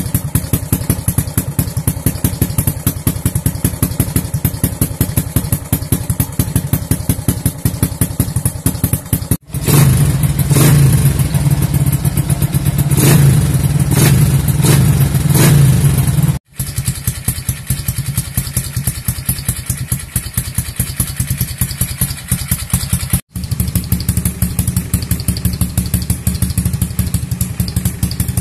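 Modified Honda EX5 Dream single-cylinder four-stroke engine with a 56 mm spec build and aftermarket exhaust, idling with a fast, even exhaust beat. About a third of the way in it turns louder and is revved in several short blips, then settles back to idle.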